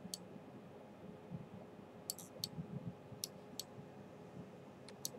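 Computer mouse buttons clicking: about eight faint, sharp clicks spaced unevenly, some in quick pairs.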